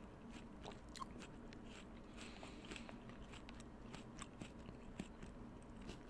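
Faint chewing of a mouthful of Golden Delicious apple, with scattered small crisp crunches.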